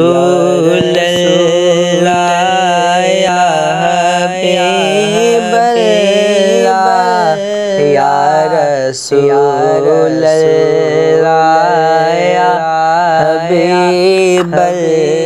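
Wordless melodic vocal line, humming in long sliding phrases over a steady low drone: the musical introduction to a devotional Urdu salaam (naat).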